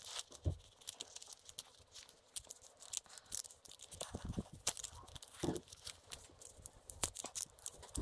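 Faint handling noise as a metal bike mini pump is forced into a snug Quickdraw carrier sleeve: irregular small clicks, scrapes and rustles.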